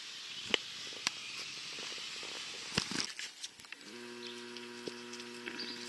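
Camcorder zoom motor whining at a steady pitch as the lens zooms, starting about four seconds in, over a light outdoor hiss with a few faint clicks earlier on.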